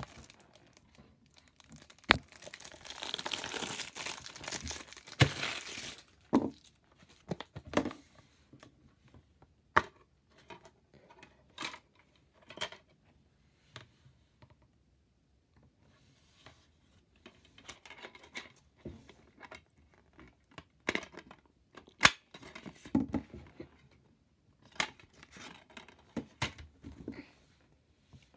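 Plastic shrink-wrap being torn off a DVD case and crinkled for several seconds, followed by sharp clicks and snaps of the plastic case and disc being handled. There are further bursts of rustling as the case contents are taken out.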